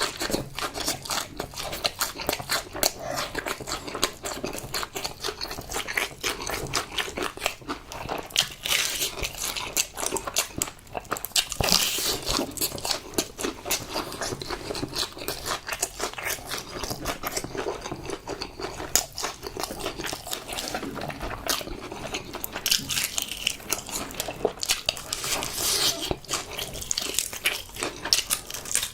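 Close-miked eating: a person biting, crunching and chewing crunchy food, with many small, irregular wet mouth clicks.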